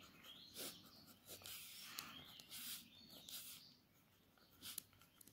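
Near silence with the faint scratching of a ballpoint pen drawing on notebook paper, in short irregular strokes with a few light clicks.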